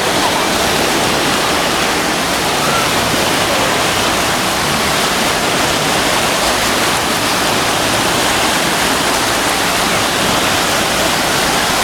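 Steady rushing of falling water, a continuous even hiss and roar with no breaks.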